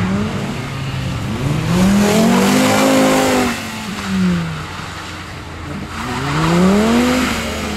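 A hatchback's engine revving up and dropping back twice as the car slides around on wet pavement, with hissing tyre noise under the first rev.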